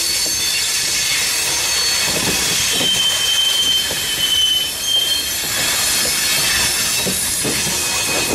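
Freight train rolling past, its wheels squealing on the rails in thin high tones that come and go, over the rumble and clack of the cars on the track.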